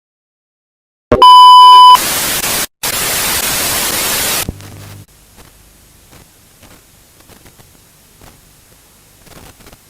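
A very loud steady beep of a single pitch near 1 kHz sounds for under a second, then gives way abruptly to loud TV static hiss lasting about two and a half seconds, with one short dropout. Then comes a brief faint hum and a quiet hiss with small crackles: the sound of a simulated broadcast signal interruption.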